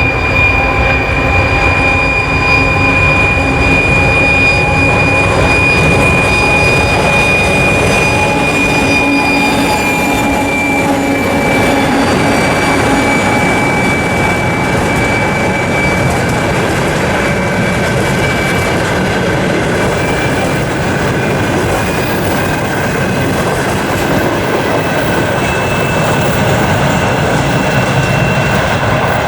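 2TE116 diesel locomotive's 5D49 engines under power pulling a passenger train away, with the turbochargers' high steady whistle over the rumble of the engines and the rolling train. The whistle dips slightly about ten seconds in and rises again near the end.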